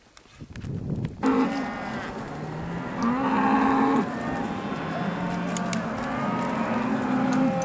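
A herd of cattle mooing, several animals calling over one another. It starts about a second in.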